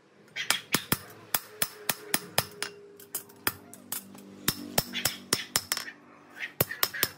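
Hand hammer striking steel, a run of sharp blows coming two or three a second with brief pauses, each with a short ring.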